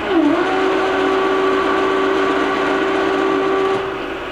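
OKK MH-2P milling machine's 2 hp feed motor driving the vertical head (spindle carrier) down: a steady whine that dips briefly in pitch as it starts and cuts off near the end, over the lower hum of the running machine.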